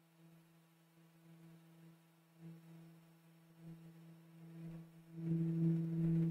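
A steady low electrical-sounding hum of two pitches that gets louder about five seconds in, with a few faint soft knocks.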